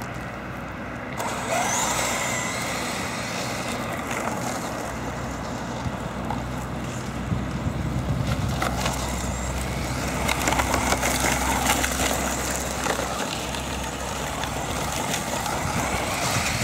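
Brushless electric RC short-course truck (HPI Flux Shot 4300KV motor) driving and accelerating. Its motor whine rises and falls with the throttle, over the crunch and spray of loose gravel under the tyres.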